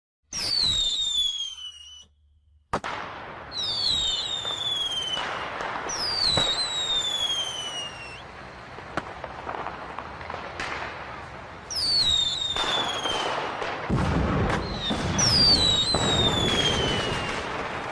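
Fireworks going off: about five whistling rockets, each with a high whistle that falls in pitch, amid sharp bangs and continuous crackling bursts.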